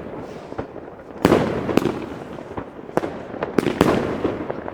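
Iskra Neon King firework battery firing: a loud burst just over a second in, another about half a second later, then more around three seconds and a quick pair near four seconds, with crackling and smaller pops in between.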